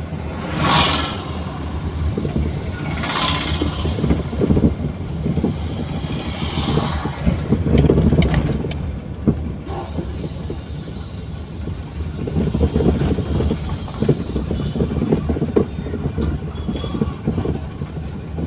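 Engine and road noise inside a moving car in slow town traffic, a steady low rumble full of small rattles and knocks. There are a few brief whooshes in the first seven seconds, and about ten seconds in a thin high whine starts and holds.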